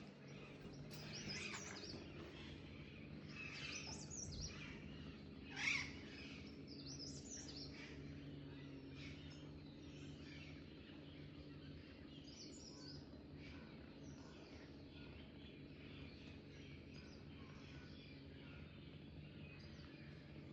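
Faint bird chirping over a steady low background hum, with one brief louder sound about six seconds in.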